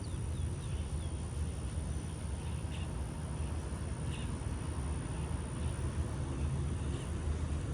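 Outdoor ambience: a steady low rumble, with short high bird chirps every second or so and a steady thin high-pitched tone.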